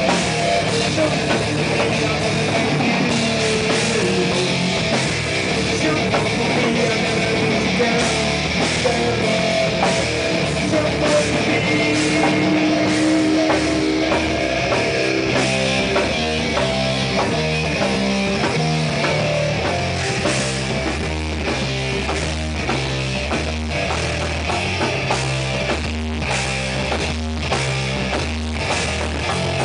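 Heavy metal band playing live: distorted electric guitar, electric bass and drum kit. About halfway in, the riff turns into a tight, chopped stop-start rhythm.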